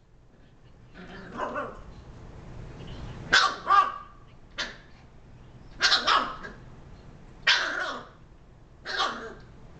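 Shiba Inu puppy growling briefly, then giving a string of about eight sharp barks, some in quick pairs.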